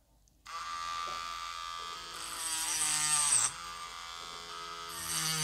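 Homemade mini rotary tool built from an RS385 DC motor switches on about half a second in and runs with a high whine. A little after two seconds in, its small cutting disc bites into hard wood: the whine sags in pitch under load and a rasp rises over it. It eases off, then bites again near the end.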